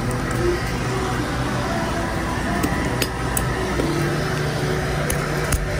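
Steady drone of a fishing boat's engine and deck machinery with a low hum, broken by a few short sharp clicks and knocks.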